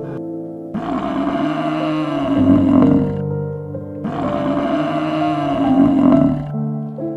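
Background music, with a large animal roaring twice. Each roar lasts about two and a half seconds.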